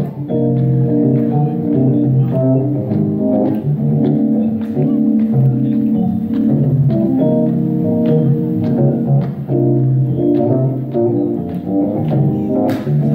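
Organ-voiced stage keyboard playing slow, held chords that change every second or so, with faint light ticks over them.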